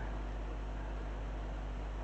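Room tone: a steady hiss with a low, constant electrical hum underneath.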